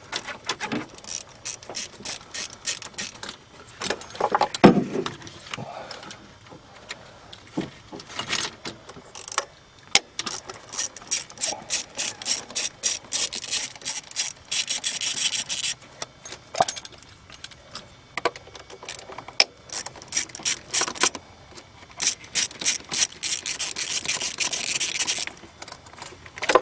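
Hand ratchet clicking in quick runs as the 10mm ignition-coil bolts are backed out, between scattered knocks and rattles of parts being handled. A louder knock comes about four and a half seconds in.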